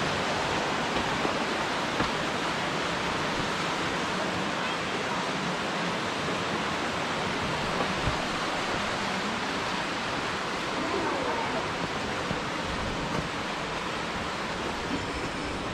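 Rushing water, a steady even hiss that holds without letup, with a few faint ticks over it.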